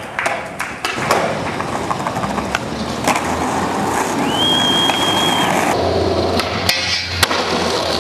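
Skateboard rolling, with several sharp clacks of the board in the first second and two more near the end. A short, high, steady squeal sounds about halfway through.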